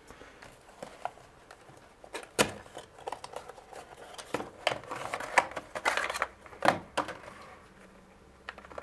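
Retail packaging handled by hand: a clear plastic blister tray and cardboard box crackling, clicking and rustling as the tray is slid out. The sounds come in scattered sharp clicks and crinkles, busiest toward the middle, with two sharper snaps.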